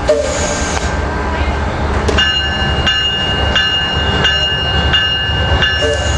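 Metrolink commuter train pulling into the station over a steady low rumble; from about two seconds in its bell rings, struck about three times every two seconds.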